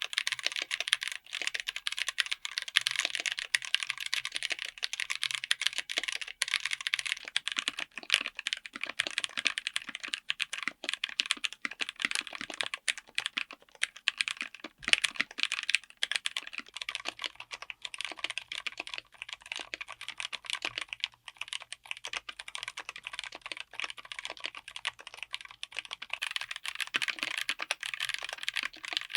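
Mechanical keyboard fitted with tactile switches being typed on fast: a dense, unbroken run of keystroke clacks.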